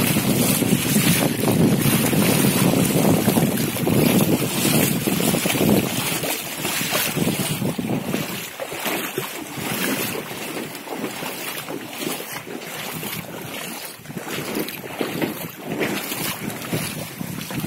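Lake floodwater rushing over and around a submerged footbridge deck, with wind buffeting the microphone. The sound is louder for the first six seconds or so, then eases a little.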